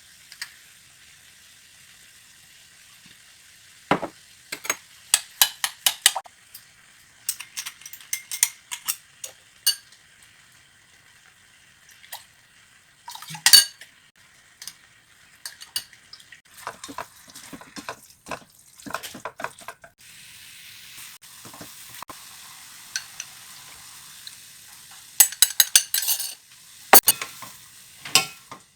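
Food frying in a pan with a steady sizzle, while a utensil stirs and knocks against the pan in bursts of sharp clicks and clinks. The loudest knock comes about halfway through.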